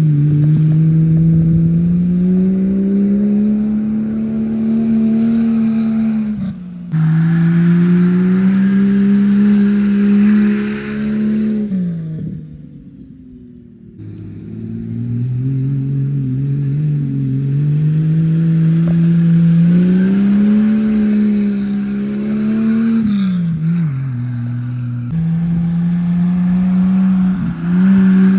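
Jeep engine revving hard as it drives through mud on wooden paddle-like wheels, its pitch rising and falling with the throttle, with mud and water spray hissing over it. The sound cuts off abruptly twice.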